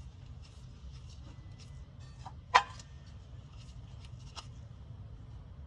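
Handling noises from a gloved hand working behind an engine's flexplate: a few faint clicks and one sharp click about two and a half seconds in, over a steady low hum.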